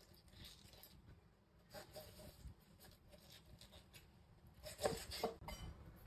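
A few light clicks and knocks of things being handled, in two short clusters about two seconds in and about five seconds in.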